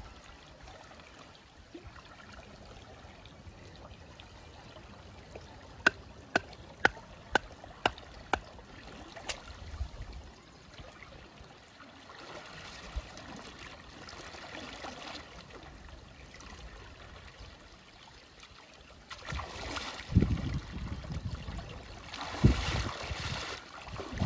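Shallow canal water running steadily, with a quick run of about seven sharp knocks a few seconds in. Near the end, louder splashing and sloshing as legs wade through the water.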